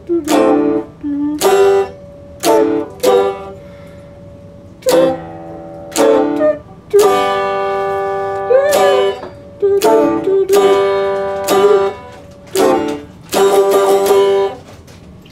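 Stratocaster-style electric guitar strummed in separate chords, each ringing briefly and then cut off. One chord in the middle is held longer with a note bent up and back. The playing stops near the end.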